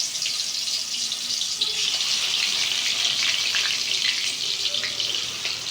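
Marinated chicken pieces frying in hot oil in a pan: a steady sizzle with a scatter of small crackles and pops.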